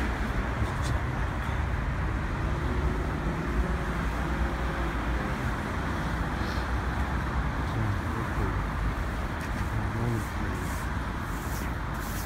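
Outdoor city street noise: a steady low rumble of traffic, with faint voices in the background.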